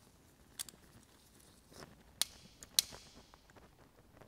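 A few sharp, light metallic clicks, the loudest about two and three-quarter seconds in, as the crankshaft position sensor and its hex-key bolt are handled and fitted against the engine block.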